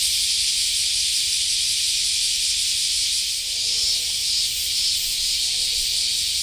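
Steady high-pitched hiss that runs without a break, with faint wavering tones joining in about halfway through.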